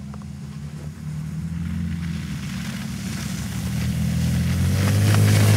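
Car engine running at fairly steady revs as a car drives over snow toward the listener, growing steadily louder. Over the last couple of seconds a hiss of tyres on snow builds up with it.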